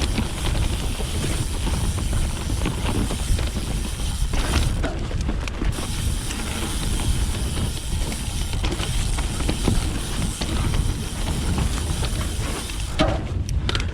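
Full-suspension mountain bike ridden along a dirt trail: steady wind buffeting on the camera microphone with tyres rolling over the ground, and scattered clicks and knocks from the bike over bumps.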